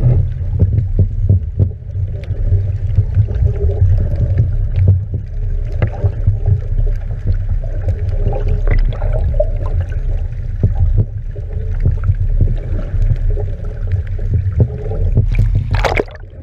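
Muffled underwater sound picked up by a submerged camera: a steady low rumble of water with scattered knocks and clicks, and a brief rushing splash near the end.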